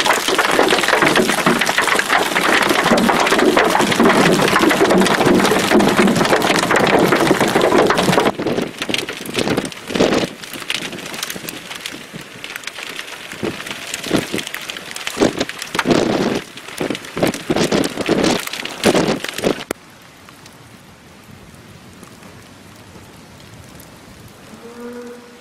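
Hail and rain pelting down on the ground in a dense, steady patter for about eight seconds. It thins to scattered separate hits, then drops to a faint hiss about twenty seconds in.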